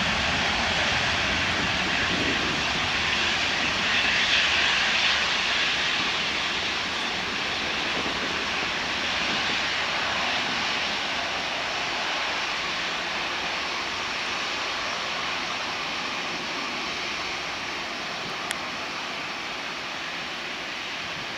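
Airbus A320-232's twin IAE V2500 turbofan engines running at high power during the takeoff roll: a steady jet roar, loudest about four seconds in, then slowly fading as the airliner moves away down the runway. A brief tick sounds near the end.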